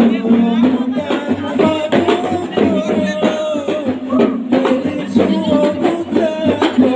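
Gambus ensemble playing traditional Samra dance music: a wavering melody over steady low plucked notes, with drums striking a quick, even beat.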